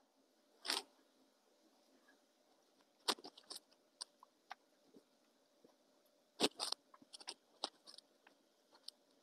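Faint, scattered light taps and scuffs of a plastic heart-shaped cookie cutter pressed through soft dough onto a wooden board, some coming in small quick clusters.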